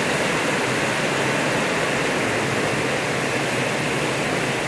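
Heavy rain pouring down in a steady, even rush.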